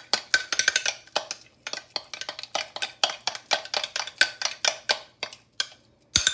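A spoon stirring and scraping in a dish, making rapid, irregular clinks and taps, several a second, that thin out a little before the end.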